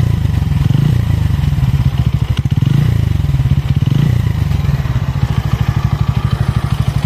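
Bajaj Pulsar N160's single-cylinder engine running, rising in a few light swells before settling into a steady idle. The noise is one the owner says the engine has had since its first service, where before it was smooth; the cause is unknown.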